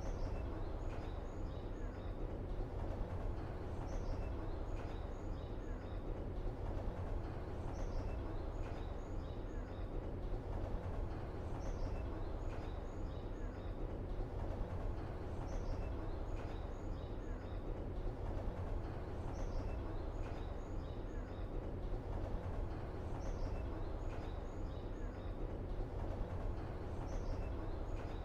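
Steady low background ambience with a short high chirping call, like a bird's, repeating evenly about every four seconds.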